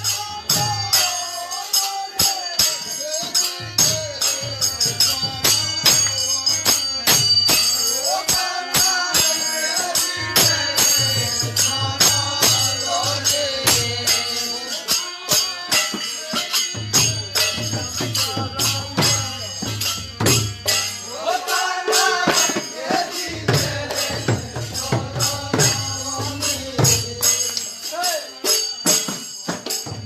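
A group of villagers singing a devotional kirtan together to a melodic chant, with hand cymbals (kartal) clashing in a fast, steady rhythm throughout.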